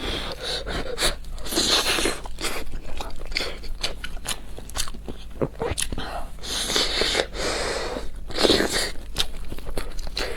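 Close-miked eating: a person biting and chewing food, with a run of short crunchy crackles and clicks and louder clusters of bites about a second and a half in, around two thirds of the way through and near the end.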